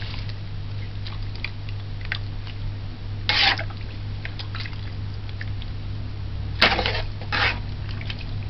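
Wet steeped sorrel calyces shifting and squelching in a plastic mesh strainer as the red liquid drains and drips into a glass bowl, with small clicks and three short splashy bursts, one about three seconds in and two around seven seconds. A steady low hum runs underneath.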